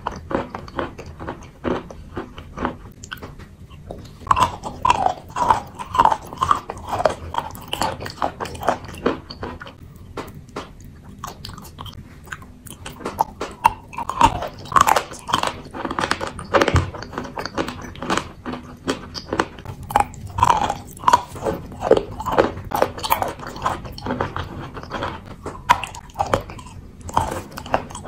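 A person biting into and chewing lumps of wet chalk: an irregular run of crunches and sticky mouth sounds, easing off briefly a couple of times.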